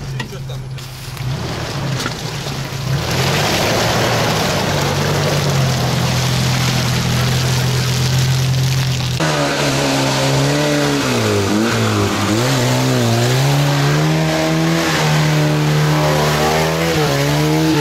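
Off-road 4x4 engines working under load as a stuck Lada Niva is towed out of deep mud, with a loud rushing of tyres churning the mud for several seconds. From about nine seconds in, an engine revs up and down unevenly.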